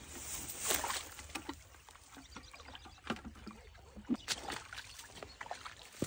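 Small hand dip net being swept through shallow creek water, with irregular splashes and sloshing; the loudest splash comes just under a second in.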